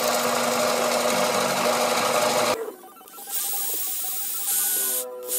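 Benchtop band saw running and cutting a small piece of thin clear plastic sheet, a loud steady buzzing cut that stops abruptly about two and a half seconds in. A fainter, high-pitched whir follows.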